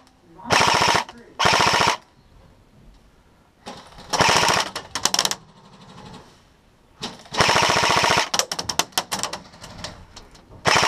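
Airsoft rifle firing on full auto in several rapid bursts: two short bursts in the first two seconds, another a little before the middle with a few single shots after it, and a longer burst about two-thirds of the way in that breaks into scattered quick shots.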